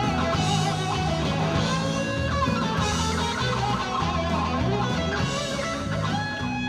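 Guitar-led song playing over a steady bass line, in an instrumental passage with no singing.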